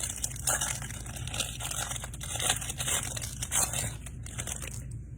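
Crinkling and rustling of a trading-card hanger box's packaging being torn open and the cards handled, a busy run of small irregular rustles and clicks that dies down near the end.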